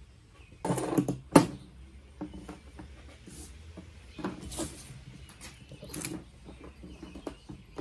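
Small still-kit parts handled on a workbench: a plastic bag rustles, then a sharp click about a second and a half in as a part is set down. Lighter clicks and rustles follow as gaskets and copper bubble caps are laid out.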